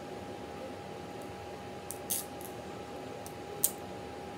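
Cooked Jonah crab shell cracking and snapping as it is broken apart by hand to pick out the meat. There are a few sharp cracks about halfway through, and the loudest one comes near the end, over a faint steady hum.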